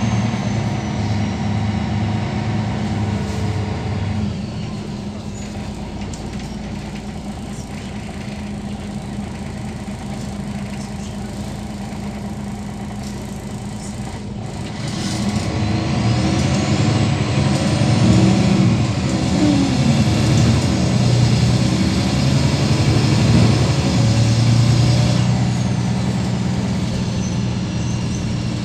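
The MAN D2866 inline-six turbodiesel of a MAN NL263 city bus, heard from inside the passenger cabin. The engine hum drops to a quieter level about four seconds in. About fifteen seconds in it grows loud again as the bus pulls hard, with a high whine rising in pitch, and it eases off a little near the end.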